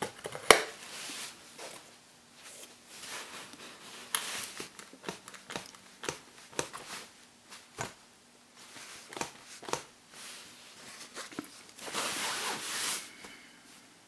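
Plastic GoPro housing being handled and clipped on a quick-release mount: a string of sharp clicks, taps and scrapes, the loudest click about half a second in, with a longer scraping rustle near the end.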